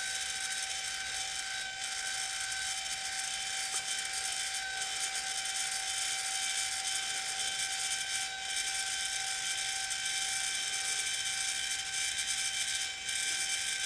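Progressive Automations PA-14 12-volt linear actuator (8-inch stroke) running steadily while retracting: an even motor-and-gear whine over a hiss. The scratchy noise this unit makes is less noticeable on the retract.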